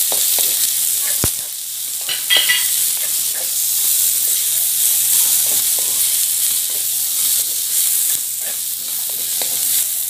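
Strips of carrot and bell pepper sizzling in butter and oil in a metal wok, with a steady frying hiss. A spatula stirs them, scraping and tapping against the pan, with one sharp click about a second in.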